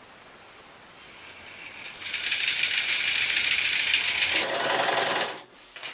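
Domestic electric sewing machine stitching through fabric: after a quiet start it speeds up into a fast, steady rattle for about three and a half seconds, then stops abruptly.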